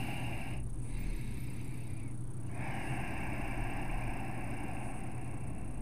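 Slow, deep breaths through the nose close to the microphone, long hissing breaths with short pauses between them, over a steady low hum.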